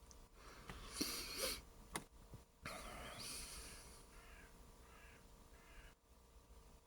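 Faint bird calls: a short falling call about three seconds in, then three or four short harsh calls in a row. A couple of faint rustles and a click come before them.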